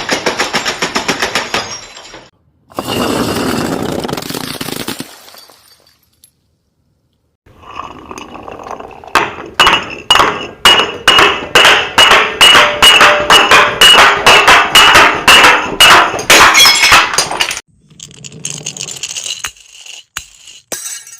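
Glass bottles breaking and being crushed: sharp cracks, clinks and crunching shards. After a short silent gap, a long loud run of strikes comes about three a second, then the sound drops to quieter crunching near the end.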